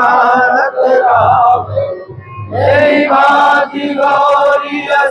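Voices singing a Hindu aarti hymn to Vishnu in a chanted devotional melody, in held phrases with a short break about two seconds in.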